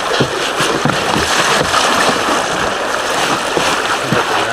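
Steady rushing and splashing of river water around the boat, with wind noise on the microphone and small irregular knocks.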